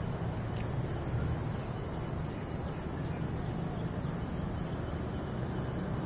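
Steady low outdoor background rumble with a faint thin high whine running through it.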